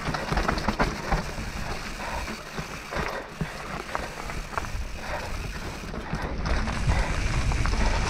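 Propain Tyee 29er enduro mountain bike rolling fast down a wet dirt trail: tyres rumbling over the ground with irregular rattles and clatter from the drivetrain and frame over bumps. A low rumble grows louder in the last second or two.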